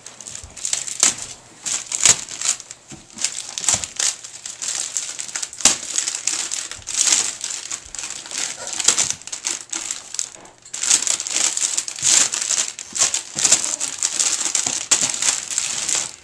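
Shiny metallic foil gift wrap being crinkled and crumpled by small hands as a child grips and pulls at it. It crackles in irregular bursts, with a brief lull about ten seconds in.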